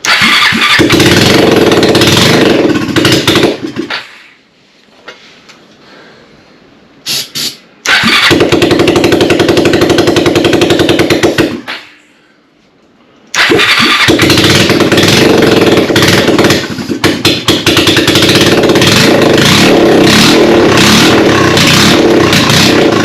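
Kawasaki Lakota ATV's single-cylinder four-stroke engine firing on carburetor cleaner sprayed into the carburetor. It runs briefly three times, stopping between tries, and the last run lasts about ten seconds. It runs, but only this way, a sign that the carburetor needs work.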